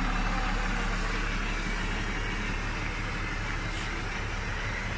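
Nissan Patrol GR Y60's swapped-in Toyota 4.2 turbo-diesel engine (the HDJ80 unit) idling steadily.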